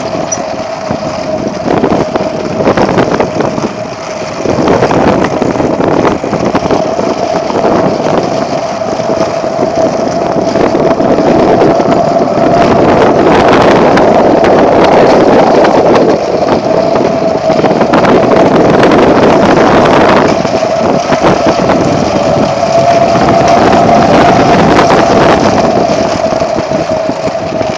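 Strong wind buffeting the phone's microphone in a dust storm, gusting louder about five seconds in and easing near the end. A steady high tone runs underneath.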